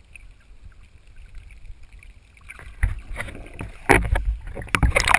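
Water splashing and sloshing against a waterproof camera held at the surface beside a swimming dog. A muffled underwater hush gives way, about three seconds in, to a run of irregular splashes and knocks as the camera breaks the surface.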